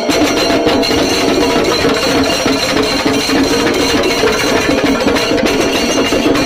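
Chenda melam: a massed ensemble of chenda drums beaten in rapid, unbroken strokes, with ilathalam hand cymbals clashing and ringing along. It is loud and dense throughout.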